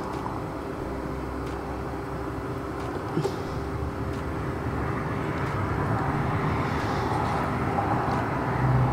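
A steady background hum and rumble with a faint constant tone, and a few light ticks.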